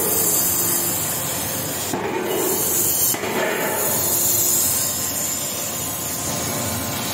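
Steady, loud hissing from a large forging hammer at work on a hot workpiece, with no distinct hammer blows; the hiss briefly dips about two seconds in and again about three seconds in.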